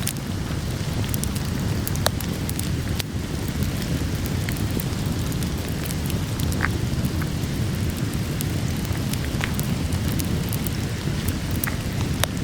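Steady rain with a low, even rumble beneath it, and a wood fire crackling with scattered sharp pops.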